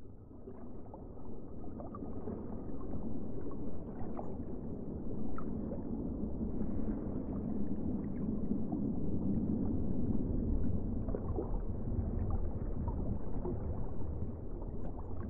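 Underwater ambience: a muffled, steady rumble of moving water with scattered small bubbling clicks, swelling in over the first few seconds.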